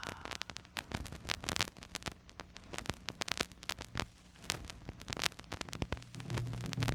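Vinyl LP surface noise in the quiet groove between tracks: irregular crackles and pops. Low music tones of the next track fade in near the end.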